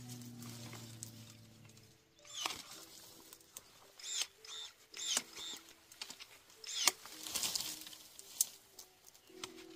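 Cordless electric pruning shears cutting shrub branches: about eight irregularly spaced snips, each with a quick motor whine, with twigs rustling between cuts. A low steady hum runs through the first two seconds.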